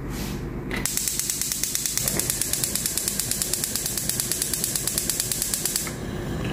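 Gas hob's electric spark igniter clicking rapidly, about ten sharp clicks a second, as the burner is lit. It starts about a second in and stops near six seconds.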